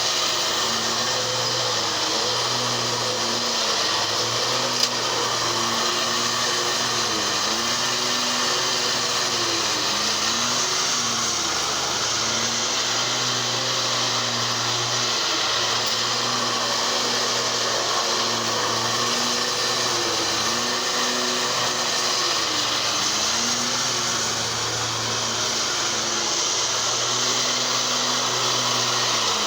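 Zero-turn riding lawn mower running with its cutting blades whirring steadily; the engine note dips briefly and recovers several times.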